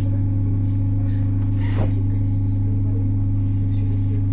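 ED9M electric train's steady electrical hum: one strong low tone with several higher tones stacked above it. A short clack sounds just under two seconds in.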